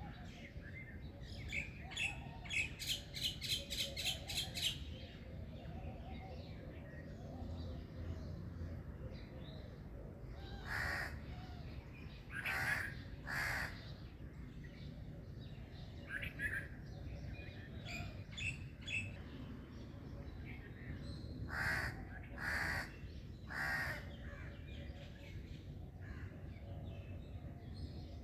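Birds calling: a quick run of about eight chirps a few seconds in, then two sets of three harsh calls about ten seconds apart, over a steady low background rumble.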